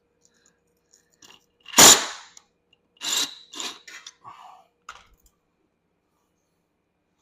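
Knocks and clatter of parts and tools being handled during a golf cart teardown. One loud knock comes about two seconds in, followed by a quick run of rattling knocks and a few lighter clicks.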